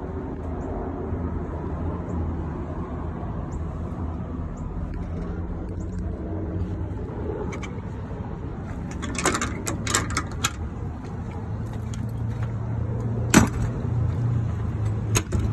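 Steady low motor hum. About two-thirds of the way in come a few clicks and knocks, and there is a sharp knock near the end.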